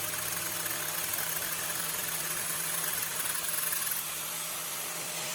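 Angle grinder with a sanding disc running steadily, grinding the end of a spark plug spun in a drill; the grinding hiss eases slightly about four seconds in.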